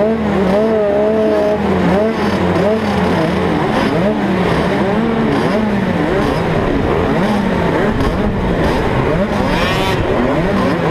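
A field of 50 cc two-stroke motocross bike engines revving on the start line, waiting for the gate to drop. Many pitches rise and fall and overlap, with one engine close and loudest.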